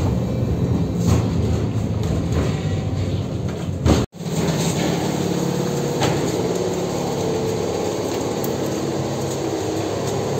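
Rail car running, heard from inside the car; about four seconds in the sound cuts off abruptly and gives way to steady background noise of people climbing a stone stairway.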